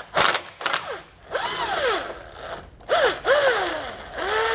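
Cordless power tool with an 18 mm socket backing out a corroded bolt in short trigger pulls, its motor whirring up and back down in pitch about five times.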